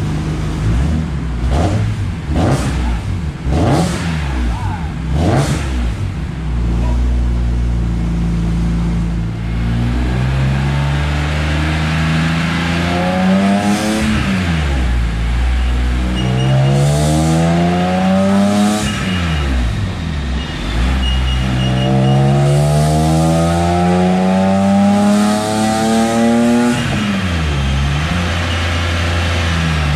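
BMW S54 inline-six in an E30 race car running on a chassis dyno. It idles with a few sharp throttle blips in the first several seconds, then revs climb three times, each rise ending in a sharp drop. The third pull is the longest and highest, near the end.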